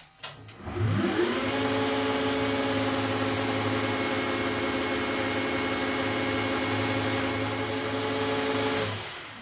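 A 1972 Weiler Matador SV metal lathe is switched on with a click, its whine rising quickly as the chuck spins up to 2400 rpm. It then runs steadily with a low hum and several steady tones, and near the end it is shut off and winds down.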